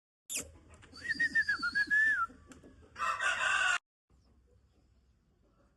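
Aseel rooster crowing: one long wavering call about a second in, followed by a short harsh noisy burst, then the sound cuts off suddenly.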